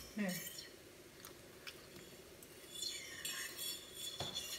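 A few light clicks and scrapes of metal forks on a plate of fried rice, with chewing.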